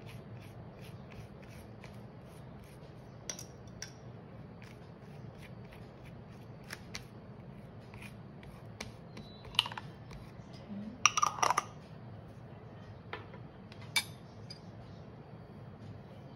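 Table knife scraping and tapping as it spreads butter over a flour tortilla on a plastic cutting board: many soft scrapes and ticks, with a few sharper clicks and knocks of metal on plastic a little past the middle, over a steady low room hum.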